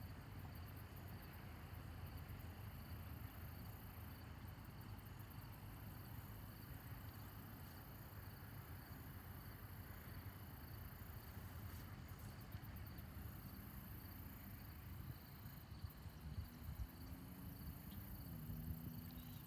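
Faint, steady outdoor background noise. About three-quarters of the way through, a weak low hum comes in and shifts slightly in pitch.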